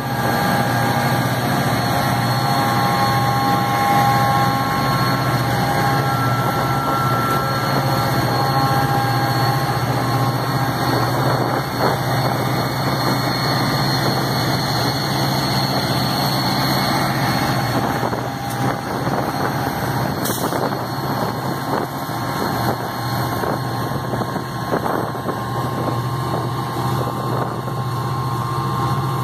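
EMD SD40T-2 diesel-electric locomotives, with turbocharged two-stroke V16 engines, pulling a freight train away under heavy load. They give a loud, steady deep drone with higher whining tones over it. In the last third, as the locomotives move on and freight cars roll past, the drone eases a little and wheel-on-rail knocks and clanks come through.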